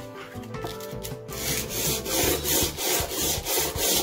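Cast-iron frog of a Stanley No. 4 hand plane rubbed back and forth on sandpaper laid flat on the bench, to flatten its faces. It makes a rhythmic gritty scraping, about two strokes a second, that starts a little over a second in. Background music plays before the rubbing starts.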